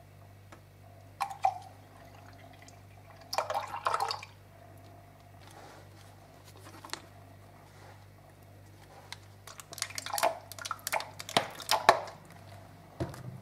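Milk poured from a glass into a plastic blender jug with a short splashing run, then a cluster of squirts and clicks as a plastic squeeze bottle is squeezed over the jug near the end.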